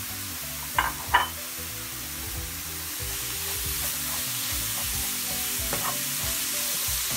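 Grated courgette and sliced leeks sizzling in oil in a nonstick frying pan as a wooden spoon stirs them. There are two sharp knocks about a second in, and the sizzle grows a little louder a few seconds later.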